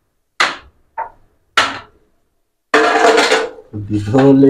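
Glass tumblers set down on a tray with three sharp clinks, about half a second apart. From about three seconds in, a louder, steady sound of another kind takes over.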